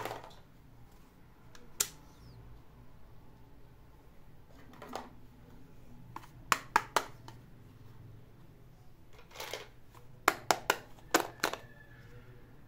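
Small hard-plastic toy accessories clicking and clacking as they are handled and set down on a carpet: a single click about two seconds in, three quick clicks around the middle and a cluster of clicks near the end, with softer scuffs between.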